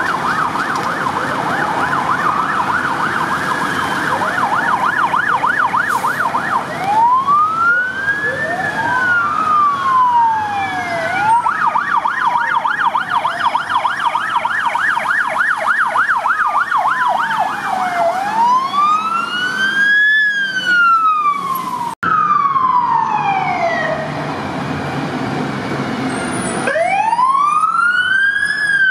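Fire truck siren switching back and forth between a fast warbling yelp and a slow wail that rises and falls.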